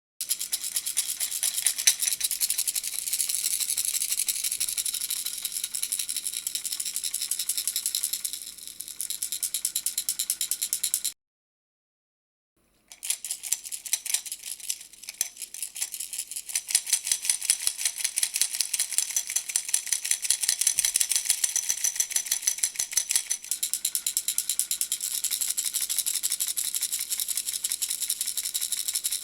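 Puppy-shaped baby rattle shaken steadily, giving a fast, even rattling. The rattling cuts out for about two seconds near the middle, then starts again.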